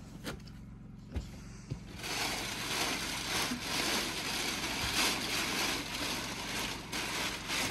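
A few light knocks, then about two seconds in, loud, continuous crinkling and rustling of a large plastic house-wrap sheet being pulled and handled over the wall.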